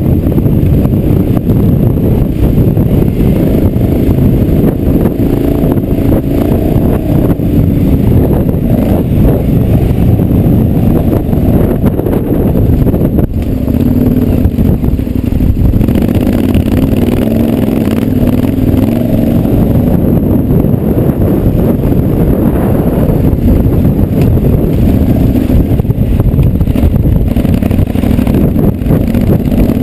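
KTM 1190 Adventure R's V-twin engine pulling the bike up a steep loose-gravel climb, its note rising and falling as the throttle is rolled on to keep the rear wheel from spinning out. Wind buffets the microphone throughout.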